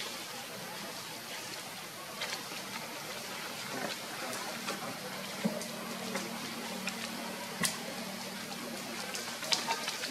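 Outdoor ambience: a steady hiss with scattered light clicks and crackles, and a faint low hum about halfway through.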